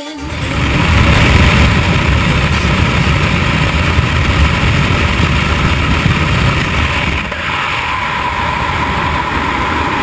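Loud, steady roar of wind and aircraft engine at the open door of a biplane jump plane in flight, with wind buffeting the microphone. The roar changes in character about seven and a half seconds in.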